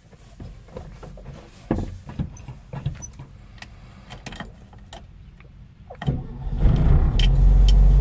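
Keys jangling and small clicks and knocks in a VW Type 2 bus, then about six seconds in its engine cranks, catches and settles into a steady, loud run.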